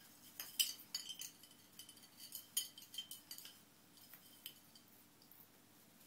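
Christmas tree baubles clinking as a cat paws and bats at them: a quick run of light, ringing clinks over the first few seconds, then a couple of fainter ones.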